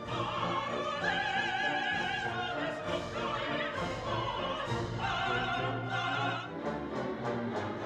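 Classical orchestra playing an operatic-style piece, with a melody in long held notes and wide vibrato over the accompaniment.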